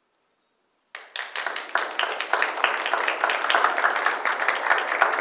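Audience applause breaks out suddenly about a second in and continues as dense, even clapping.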